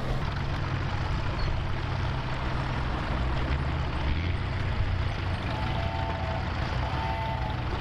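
Vintage crawler tractor's engine running steadily as it drags a weight-transfer sled in a tractor pull, with other tractor engines running too. Two short high tones sound near the end.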